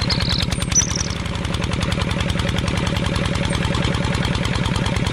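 Tractor engine running at a steady idle with an even, rapid knocking beat. Two short high chirps sound in the first second.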